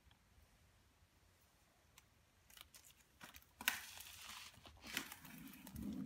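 Clear plastic shrink-wrap being peeled and torn off a new MacBook Air box, crinkling and crackling. It is faint; the peeling starts about two and a half seconds in and grows louder near the middle.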